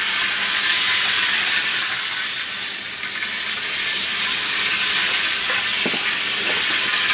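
Hornby Dublo three-rail model Bo-Bo diesel locomotive running around the track, a steady hiss from its motor and its pickup on the rails, with a few faint knocks near the end.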